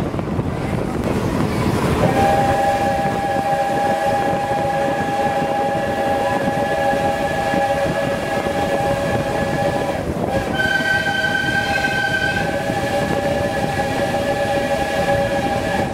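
Steam locomotive's chime whistle blown in one long chord of several notes, starting about two seconds in, with a short break about ten seconds in and a higher, shriller note added for a couple of seconds after it, over the steady running noise of the train. It is the warning for a road level crossing.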